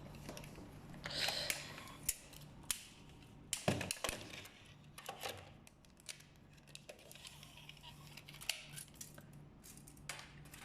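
Handling noise: scattered clicks, taps and brief rustles as a tape measure is set out beside a metal toy bulldozer, over a faint steady low hum.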